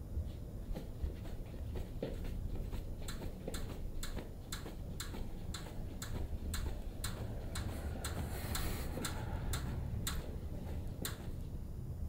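Light, even ticking, about two to three ticks a second, growing more distinct after about two seconds, over a low steady hum.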